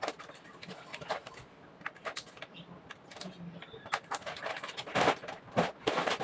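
Plastic vacuum storage bag full of clothes crinkling and rustling as it is handled, with a run of louder crinkles near the end.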